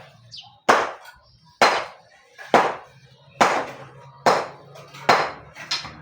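Hammer blows struck at an even pace, about one a second, seven in all, each ending with a short ring-out.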